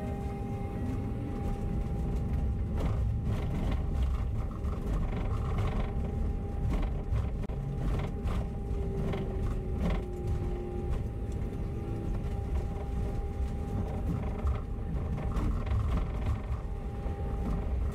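Bus pulling away from a stop and driving along a street: a steady low rumble of engine and road, with a steady whine and occasional creaks and rattles.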